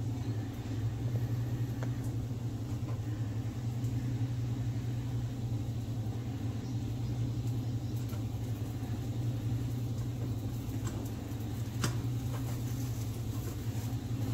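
A steady low hum, with a few faint taps of a plastic spatula against a nonstick skillet.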